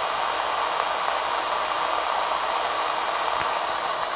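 Steady static hiss from a two-way radio's speaker during a keyed transmission, even and unbroken, with faint thin high tones in it.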